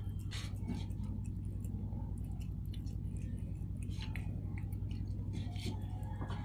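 A cat chewing and licking soft durian flesh close up: irregular small wet clicks and smacks, over a steady low hum.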